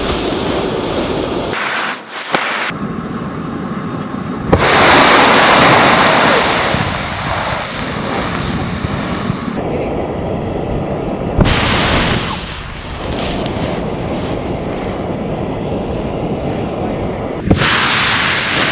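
Roaring rush of a fireball as a water-filled balloon drops into smoking-hot vegetable oil: the water flashes to steam and throws the burning oil into the air. The rush starts suddenly several times as the burst is replayed, and is loudest about five seconds in.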